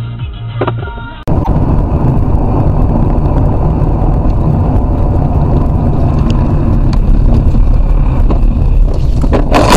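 Steady road and engine rumble inside a car driving on a snowy road, picked up by a dashcam microphone; it starts suddenly about a second in, after a snatch of music. Near the end comes a sharp, loud crash as an oncoming car slides into the car.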